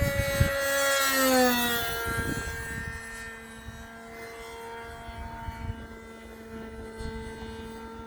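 Radio-controlled P-51 model's gas engine flying past: its whine drops in pitch over the first two seconds, then settles to a steady, fainter drone as the plane flies away. The engine is set rich on its mixture.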